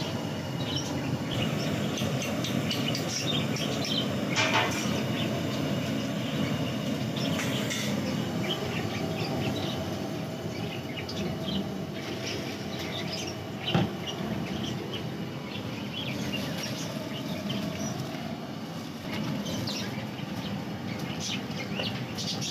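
A large aluminium pot of biryani masala water boiling hard, heard as a steady rumbling noise, with one sharp knock about fourteen seconds in.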